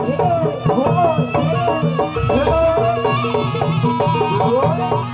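East Javanese jaranan accompaniment: a gamelan-style ensemble playing stepped percussion notes with drums, and a bending, wavering melody line over them. A deep low note swells in about two seconds in.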